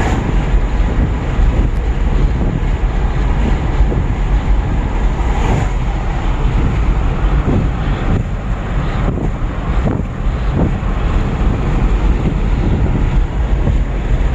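A loud, steady, rumbling noise, heavy in the low end, like a vehicle running.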